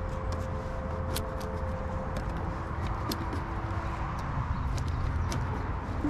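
Hive tool scraping and clicking against the wooden top bars and wax of beehive frames, several short sharp ticks over a steady low rumble and a faint steady hum.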